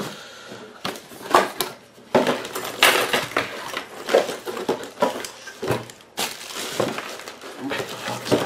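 Irregular clicking, clinking and rustling of cables and small metal parts being handled on a desk.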